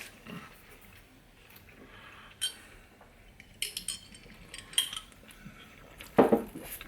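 Scattered light clicks and clinks of small items being handled and set down on a table, with a louder clack near the end.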